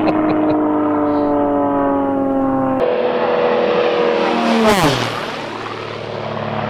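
Propeller airplane's engine drone, its pitch sliding slowly down as it moves off. After an abrupt change about three seconds in, an aircraft fly-by swells and drops steeply in pitch as it passes, about five seconds in.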